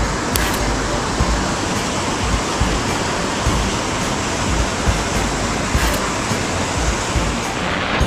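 Waterfall rushing in a loud, steady roar of falling water, with irregular low rumbles of wind on the microphone.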